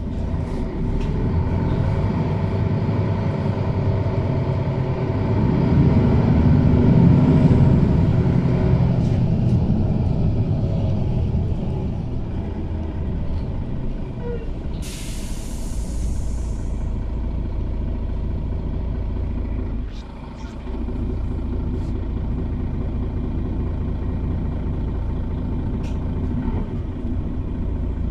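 City bus engine running, heard from inside the passenger cabin, louder for a few seconds near the start. About halfway through, a sharp hiss of released compressed air from the bus's air system lasts about two seconds.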